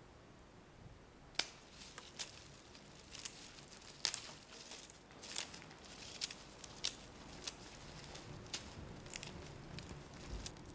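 Fresh flowers and stems being crushed and torn: irregular crisp crackles and snaps, starting about a second and a half in.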